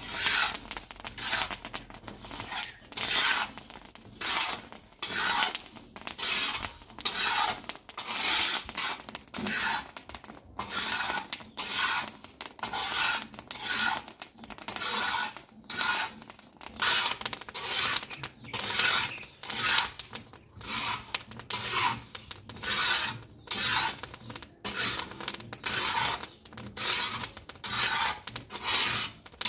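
Wheat grains being roasted on a large metal griddle, stirred and scraped across the hot metal with a metal spatula and a small brush. Repeated rasping scrapes in a steady rhythm, one or two strokes a second.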